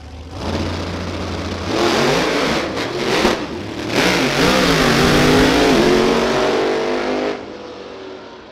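Two drag-racing cars launching and running at full throttle down the strip, engines loud, the pitch rising and falling through the run. The sound drops away sharply about seven seconds in and fades as the cars get far off.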